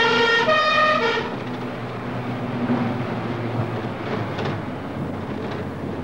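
Two-tone emergency siren alternating between two notes, cutting off about a second in, followed by steady engine and road rumble heard from inside a moving van.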